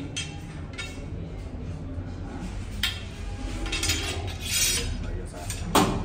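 Hard objects being handled: scattered clinks and knocks over a low hum, with the loudest knock near the end.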